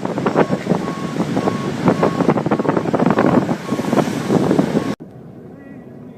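Storm-force wind buffeting the microphone in rapid, loud gusts. It cuts off abruptly about five seconds in, leaving a much quieter background.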